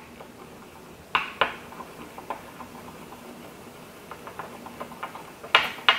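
Chopsticks stirring sauce in a small dish, tapping against it: two sharp clicks about a second in, a few faint taps later, and a louder cluster of clicks near the end.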